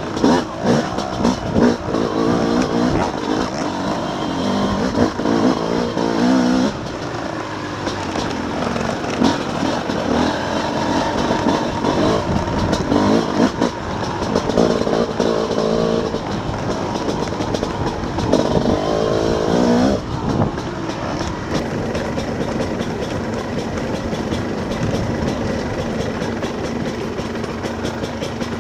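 Off-road dirt bike engine, heard from on board the bike, revving up and easing off again and again over a rough muddy trail; after about twenty seconds the engine note holds steadier.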